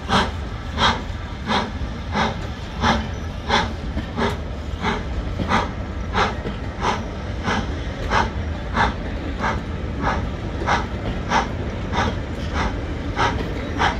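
GWR Castle-class 4-6-0 steam locomotive 7029 Clun Castle working a train at low speed. Its exhaust beats come in an even rhythm, about three every two seconds, over a low rumble of the moving train.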